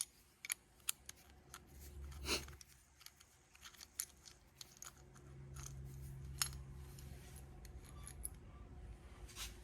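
Faint, irregular light metallic clicks and ticks of a small Allen key and hand tools working the set screw on a 12-valve Cummins VE diesel injection pump, under a faint low hum.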